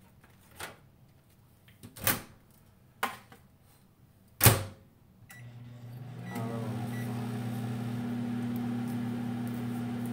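A few clicks and knocks, the loudest a sharp clunk about four and a half seconds in as the microwave oven door is shut. Short keypad beeps follow, and the microwave starts up with a steady low electrical hum that grows louder about a second later as it begins heating.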